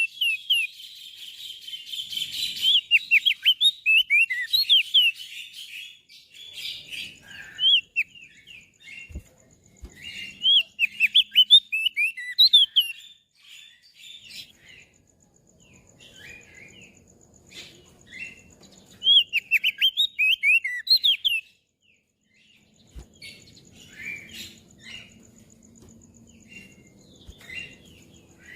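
Crested white-eye (opior jambul) singing: quick, high twittering chirps in dense bouts broken by short pauses, thinning to sparse, fainter notes over the last few seconds.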